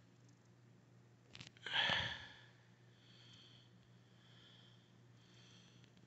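A person breathing close to the microphone, with a loud breath about two seconds in just after a small click, then fainter breaths over a steady low hum.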